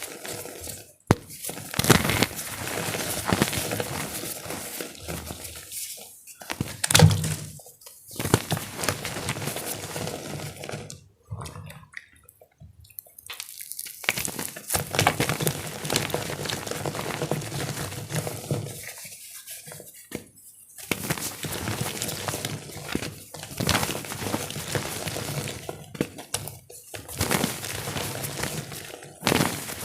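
Star-shaped blocks of gym chalk being crushed: dense crunching and crumbling with sharp cracks, broken by a few short pauses.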